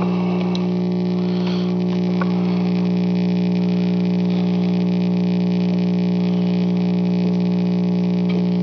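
1965 Magnavox solid-state AM-FM clock radio humming loudly and steadily, even with the volume turned all the way down. The owner thinks a bad capacitor is the cause.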